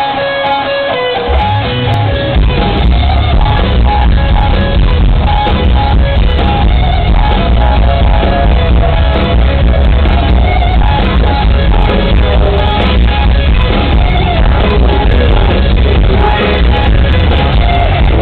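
Hard rock band playing live: an electric guitar riff, joined about a second in by bass and drums, after which the full band plays on, loud and dense.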